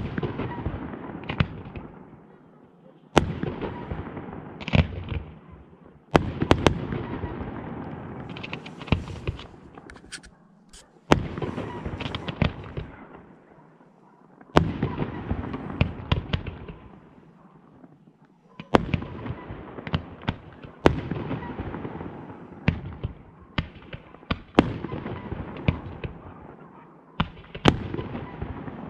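Fireworks display: a run of loud shell bursts every few seconds, each bang followed by a long crackling tail that dies away.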